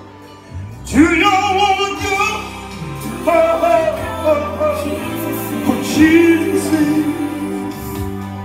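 A man singing a gospel song into a microphone over a recorded backing track; after a quieter first second, his voice comes in strongly about a second in and carries on over the accompaniment.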